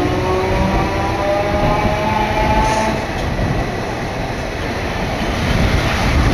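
Sapporo streetcar running, heard from inside the car: steady rumble and rattle of the wheels on the rails. Over the first two to three seconds a motor whine rises slowly in pitch as the tram gathers speed, then sinks into the rumble.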